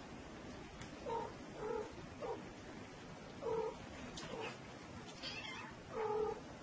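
A cat meowing repeatedly: a series of about six short meows, with the loudest one near the end.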